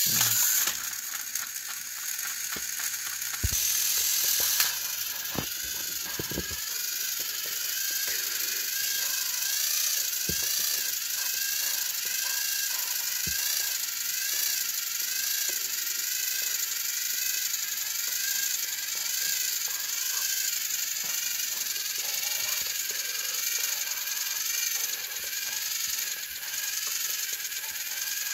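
Battery-powered Thomas & Friends toy train motors whirring with a gear rattle as two engines push nose to nose against each other on plastic track, their whine wavering up and down under the strain. A few sharp clicks in the first several seconds.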